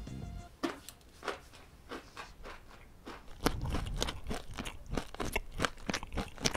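A person chewing crunchy enzyme-supplement granules right up against a microphone: crisp, irregular crunches that grow louder and more frequent about halfway through.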